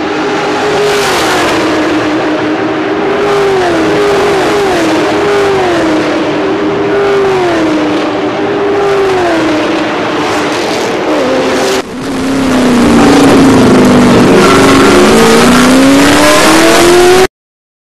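Race car engines at full throttle, the pitch swooping down and levelling off again and again. About twelve seconds in a louder, closer engine takes over, its pitch climbing as it accelerates. The sound cuts out briefly near the end.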